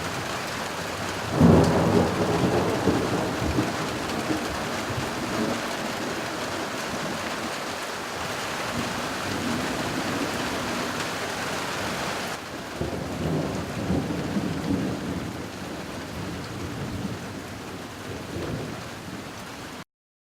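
Thunderstorm: steady rain falling, with a loud clap of thunder about a second and a half in that rolls on for several seconds. The rain's hiss changes suddenly about twelve seconds in, and more rolling thunder follows before the sound cuts off abruptly near the end.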